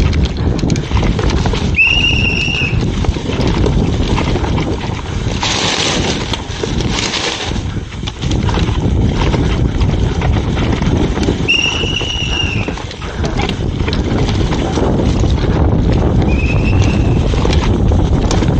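Mountain bike speeding down a dirt forest trail: tyres rumbling over dirt and leaves, the bike rattling over bumps, and wind buffeting the chest-mounted camera's microphone. The disc brakes squeal briefly three times, about 2, 12 and 17 seconds in.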